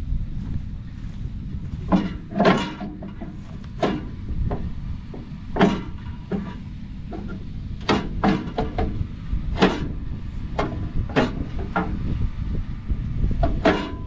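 Scattered metallic clanks and knocks, about ten of them, some ringing briefly, as tools and steel parts are worked on the auger bearing mount of a combine's flex platform, over a steady low wind rumble.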